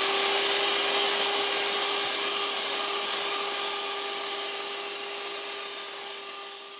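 Electric hand mixer running at one steady speed, its beaters whipping egg whites and sugar into meringue toward soft peaks. The sound fades gradually over the last couple of seconds.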